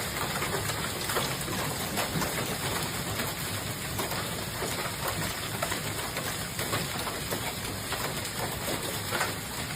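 A storm's rain and hail pelting down on surfaces: a dense, steady patter of many small impacts. A faint steady high whine sits underneath.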